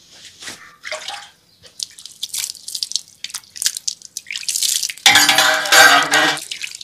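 Water ladled from an aluminium pot and poured over hands, splashing and dripping onto a paved floor, with clinks of the metal ladle against the pot. About five seconds in comes a louder held pitched sound lasting about a second and a half.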